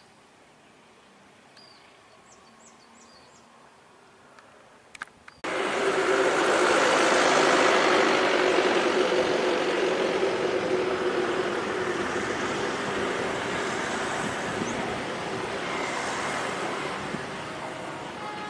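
A few faint bird chirps, then an abrupt switch to the loud, steady engine noise of an approaching diesel-electric locomotive on a passenger train, with a steady hum, slowly getting quieter.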